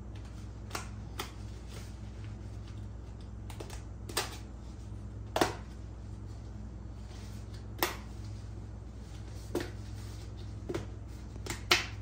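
Ribbed plastic exhaust hose of a portable air conditioner being pulled open at its end, the folds popping out in sharp, irregular clicks, about ten of them.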